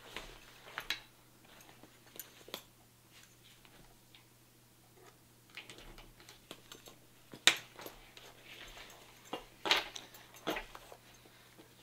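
Handling noise from a padded nylon shotgun scabbard with a shotgun in it: scattered clicks, knocks and fabric rustles as the gun, the scabbard and its sling's metal clips shift on the tabletop, with the loudest knocks a little past halfway.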